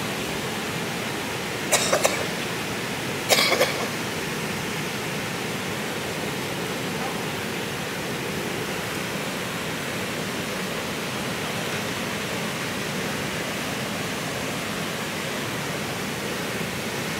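Steady rush of river water pouring over a low weir. Two brief sharp bursts of noise break through about two and three and a half seconds in.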